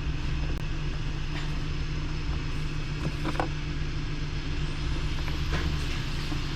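A steady low vehicle-like drone, with a few light clicks of a flathead screwdriver working the air-intake hose clamp.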